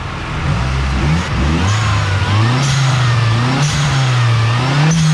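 Toyota Starlet EP71's swapped-in 4E-FTE turbocharged four-cylinder engine being revved, its pitch climbing about a second in and then rising and falling with the throttle.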